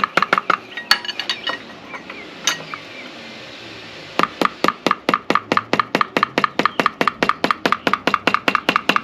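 Ratchet wrench clicking fast and evenly, about six clicks a second, as the nut on the motorcycle's triple tree is tightened down. The clicking stops about a second in, leaving a few scattered clinks, and starts again about four seconds in.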